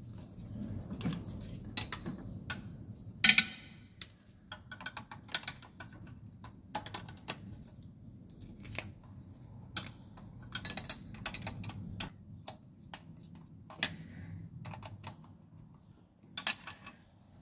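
Wrench clicking and clinking on metal as a replacement starter motor's 13 mm mounting nuts are worked, in short runs of quick clicks with single knocks between.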